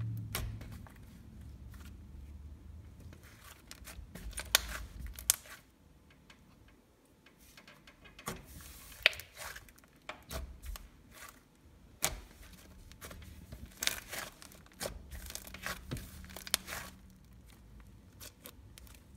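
Butter slime being squished, stretched and poked by hand, giving off irregular sharp clicks and crackly pops with quiet stretches between them.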